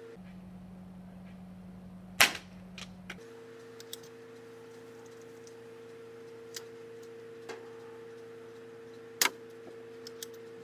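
Two sharp cracks about seven seconds apart, the first the louder and followed by a few faint clicks, from air rifle shots at a small pile of homemade potassium chlorate and aluminum powder exploding-target mix. A steady low hum runs underneath.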